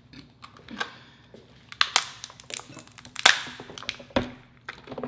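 Shell of a giant cooked lobster tail being cracked and pulled apart by hand: a run of sharp cracks and crunches, loudest about three seconds in.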